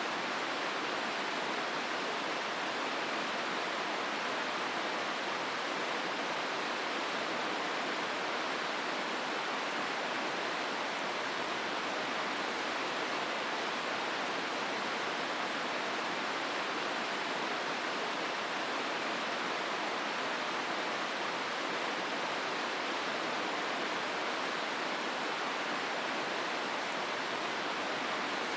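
Hozu River water rushing steadily, an even hiss with no breaks or changes.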